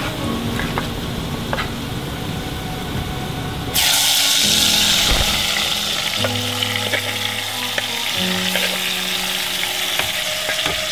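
Ingredients dropped into hot cooking oil in a pan, starting a loud sizzle suddenly about four seconds in that carries on steadily.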